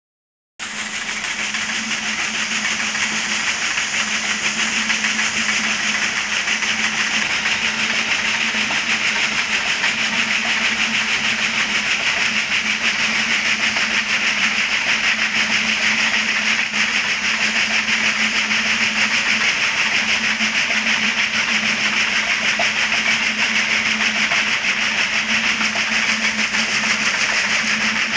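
Water gushing from a pipe onto the plastic buckets of a small micro-hydro water wheel and splashing into the channel below, a steady rushing spatter that starts about half a second in. A steady low hum runs beneath it.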